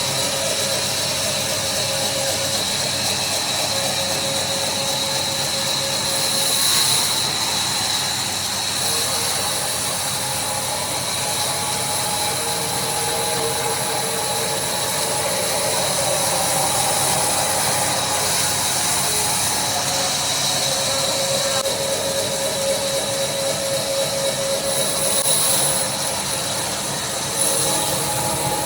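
A power woodworking machine running steadily, with a constant high whine over a dense mechanical noise.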